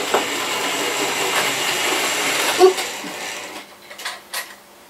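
Small electric motor of a 00 gauge model locomotive whirring steadily, cutting out about three and a half seconds in, followed by a couple of light plastic clicks.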